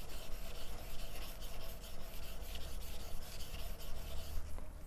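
Steel plane iron rubbed back and forth on a 4000-grit Japanese water stone: a steady gritty scraping of repeated honing strokes, polishing the edge up to a gloss.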